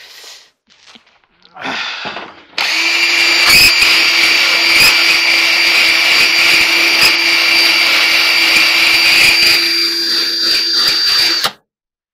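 Cordless drill running at steady speed, its spinning attachment scraping old door-felt residue off the metal rim of a clothes dryer drum. It starts about two and a half seconds in, after some handling knocks, and stops abruptly near the end.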